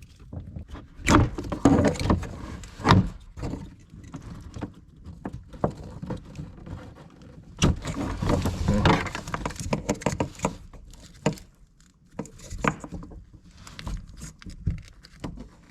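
Plastic wiring-harness connectors and retainers being unclipped from a dashboard and handled: scattered clicks, knocks and rattles, with a longer stretch of clattering and rustling around the middle.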